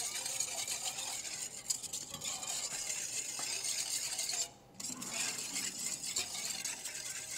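A wire whisk scraping and swishing rapidly around a stainless steel bowl, beating thin sauce of rice vinegar, soy sauce and sugar until the sugar dissolves. It pauses briefly about four and a half seconds in, then carries on.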